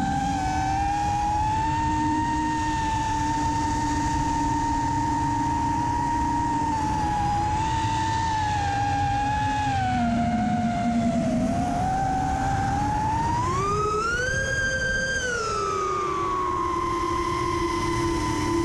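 Brushless motors and propellers of a 5S FPV racing quadcopter whining steadily in cruise, heard through the onboard camera, with a rush of wind underneath. The pitch dips about ten seconds in, then climbs sharply as the throttle goes up about thirteen seconds in and falls back a couple of seconds later.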